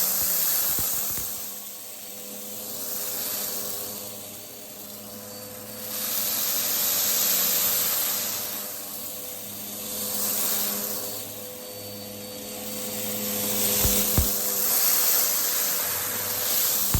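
Vacuum cleaner running with a steady motor hum, its rushing airflow swelling and fading every few seconds as it is pushed back and forth. A couple of short knocks come near the end.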